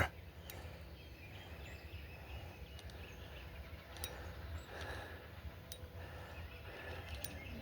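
Faint outdoor background noise with a few soft, scattered ticks.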